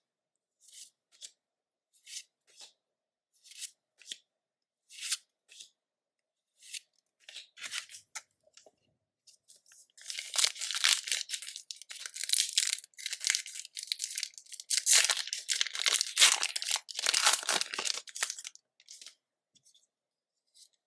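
Trading cards handled one at a time, each giving a short swish, about once a second; then, from about halfway in, a foil booster-pack wrapper torn and crinkled for about eight seconds, the loudest sound.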